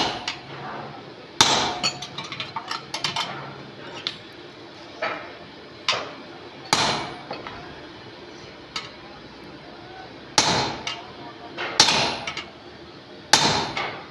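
Hammer striking metal parts in irregular blows, about one every one to two seconds, each with a short metallic ring, with a quick run of lighter taps about three seconds in.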